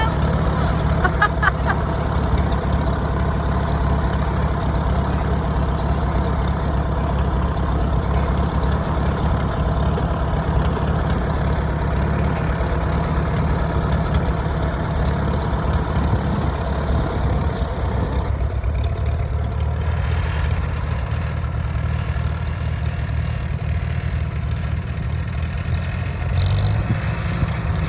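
1947 Farmall H tractor's four-cylinder engine running steadily, its note shifting lower about two-thirds of the way through.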